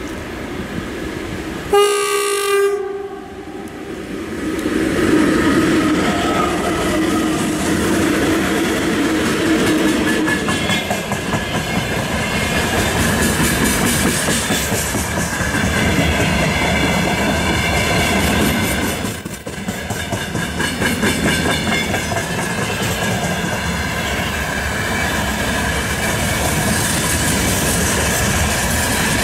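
Two coupled VL10U DC electric locomotives hauling a freight train: one short horn blast about two seconds in, then the locomotives and a long string of loaded gondola wagons rolling past, the wheels clattering over the rail joints.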